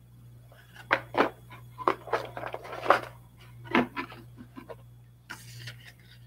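Cardboard box and paper leaflets being handled and rustled: a run of sharp crackles and taps from about a second in to nearly five seconds, then a shorter rustle near the end.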